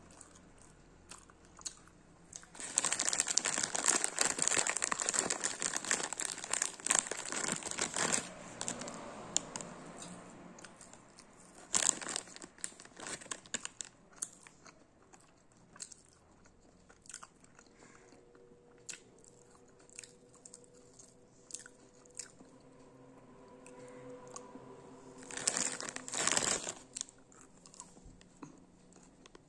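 Clear plastic bag crinkling as crunchy sweets are handled in it, then sharp crunches as the sweets are bitten and chewed, with another short burst of bag crinkling near the end.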